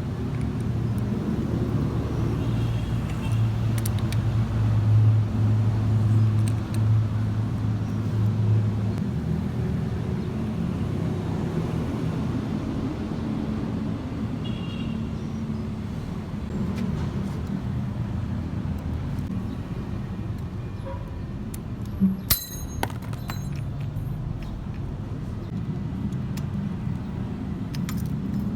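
Suzuki Raider 150 Fi motorcycle engine idling steadily, an even low hum, with a few sharp clicks near the end.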